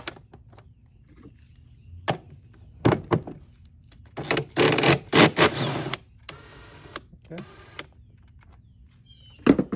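Ratchet wrench and socket clicking in rapid runs as the air filter housing screws are turned out, with a few knocks of the tool against the plastic housing.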